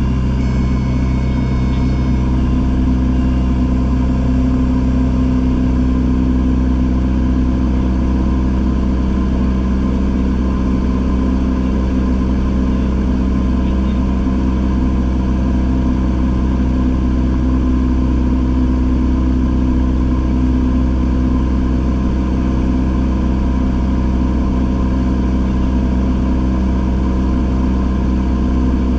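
Single-engine light airplane's piston engine and propeller running steadily in cruise, heard inside the cockpit as a constant drone.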